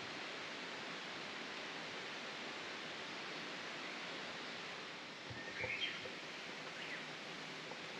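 Steady outdoor rushing noise, with a bird giving a few short chirps past the middle.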